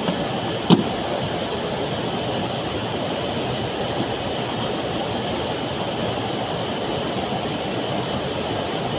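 Steady mechanical running noise, with one sharp click a little under a second in.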